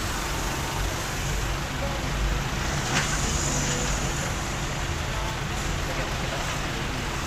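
Steady road and engine rumble of a moving vehicle, with faint voices underneath.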